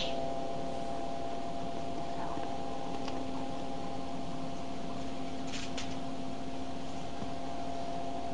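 Steady low electrical hum with hiss, with a faint click about three seconds in and two more close together a little past halfway.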